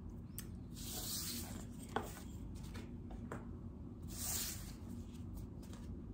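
Tarot card piles being slid and picked up off a wooden tabletop: soft sliding rustles about a second in and again around four seconds, with a few light taps.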